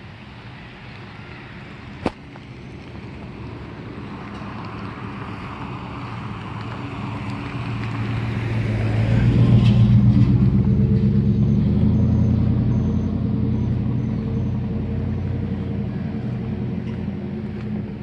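A motor vehicle drives past, its engine growing louder to a peak about halfway through, then slowly fading as it moves away. There is a single sharp click about two seconds in.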